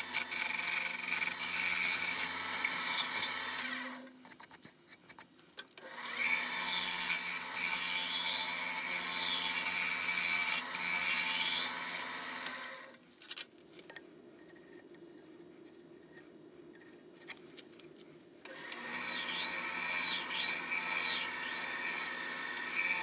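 A gouge cutting into a dry spalted maple bowl blank spinning on a wood lathe, making a scraping shaving noise as the shavings peel off. The cutting comes in three stretches, broken by a short pause about four seconds in and a longer quiet gap of about six seconds past the middle, where only a faint low hum remains.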